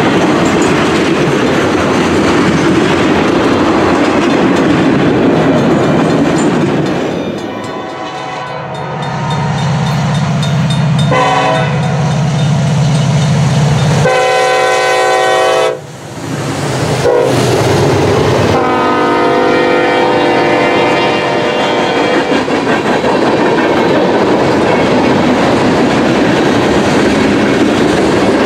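Freight cars rolling past with wheel clatter on the rails. Then a Norfolk Southern diesel locomotive's horn sounds four blasts from about 7 to 18 seconds in, the third shortest, matching the long-long-short-long grade-crossing signal. The locomotives and a string of tank cars and hoppers then roll past, wheels clattering.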